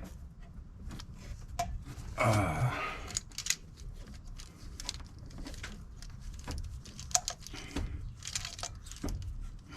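Metal tools and engine parts clinking and rattling as the thermostat housing comes off an Oldsmobile 350 V8, with scattered sharp clicks. A louder rasp, falling in pitch, comes about two seconds in.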